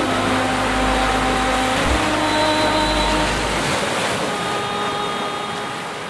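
Ocean surf washing up a sandy beach in a steady rush, under soft held musical chords that shift every couple of seconds. The deep bass notes drop out about two-thirds of the way through, and the whole sound begins to fade near the end.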